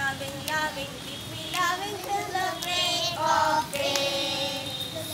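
Young children singing a song together, their voices high and pitched in short sung phrases.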